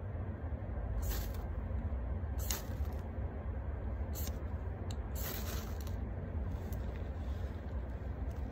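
A Camillus knife scraped down a ferro rod in about five short hissing strokes, roughly one every second or so, striking sparks onto a tinder bundle. The strokes stop near the end, over a steady low rumble.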